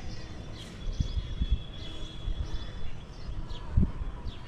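Outdoor rooftop ambience of irregular low rumbling thumps on the microphone, loudest about a second in and again near the end. Faint bird chirps and a thin high whistle sound over it.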